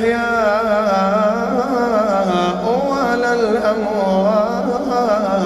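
A man's voice reciting the Quran in melodic tajweed chant. He draws out a long vowel without a break and ornaments it with wavering turns of pitch.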